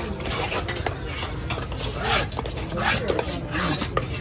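A large knife scraping scales off a fish on a wooden chopping block, in repeated quick scraping strokes that also drag across the wood.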